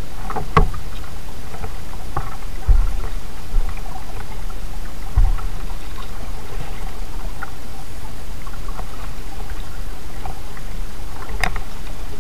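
Kayak being paddled: a steady hiss of water and hull noise, with scattered short paddle splashes and clicks, and two low knocks on the hull about three and five seconds in.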